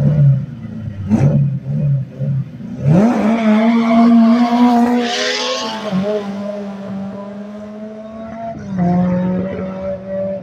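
Drag-race launch. Engines at the start line rev in short pulses about three times a second, then about three seconds in they launch with a sharp rise in engine pitch and a brief high hiss. The engine note then holds steady as the cars pull away, dipping at about six seconds and shifting again near nine seconds.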